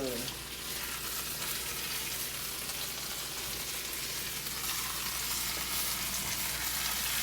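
Meat frying in a hot pan with butter: a steady sizzle with fine crackles.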